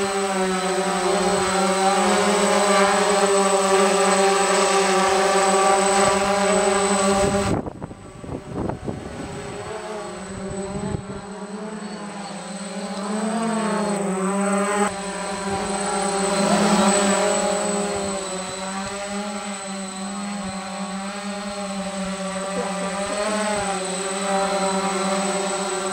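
Small quadcopter drone's motors and propellers whining in flight, the pitch wavering up and down with the throttle. The sound drops away sharply about eight seconds in, then comes back quieter and swells and fades.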